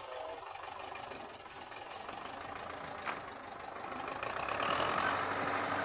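Tractor engine running at idle, a steady low chugging that grows louder about four seconds in.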